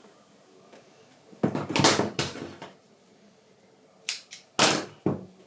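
Handling noises of a leatherwork bench: a few separate rustles and light knocks as the waxed thread and leather pieces are picked up and moved, with a longer one about a second and a half in and shorter sharp ones near the end.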